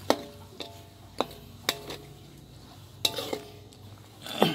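A metal spatula stirring liquid in a metal wok, knocking against the pan about eight times so that the pan rings briefly after each knock.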